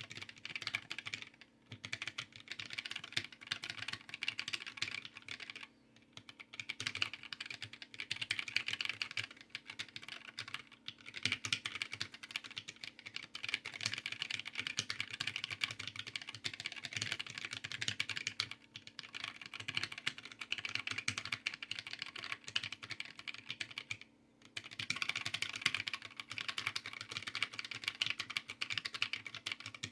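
Fast, continuous typing on a small handwired mechanical keyboard: a dense run of key clicks, broken by short pauses every few seconds.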